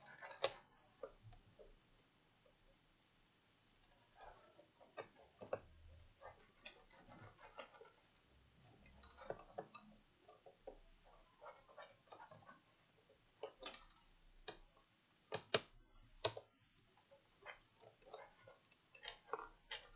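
Irregular light clicks and taps of fingers and a small screwdriver working screws and plastic on the underside of an HP Pavilion dv6 laptop, with a few sharper clicks.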